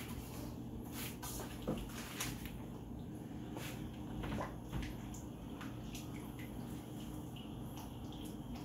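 Sauce being whisked in a metal wok: scattered light taps and scrapes of the whisk against the pan with soft liquid swishing, over a steady low hum.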